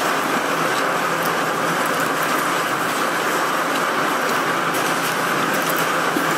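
Rainstorm: a steady rush of wind and rain, with faint scattered ticks.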